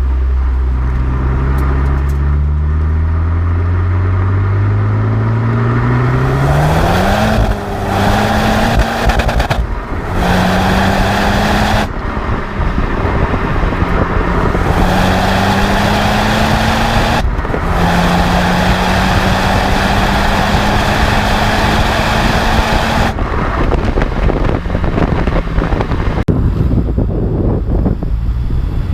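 Stock Honda Civic Type R (FK8) 2.0-litre turbocharged four-cylinder accelerating hard: the engine note rises steadily for about seven seconds, then drops briefly at each upshift, four times, climbing more slowly in each higher gear. Over the last few seconds the engine note falls away, leaving road and wind noise.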